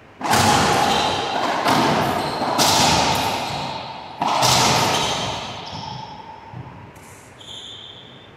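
Racquetball being struck hard and slamming off the court walls during a rally: four loud cracks one to one and a half seconds apart, each ringing out in the enclosed court's echo, then a few softer knocks and a brief high squeak near the end.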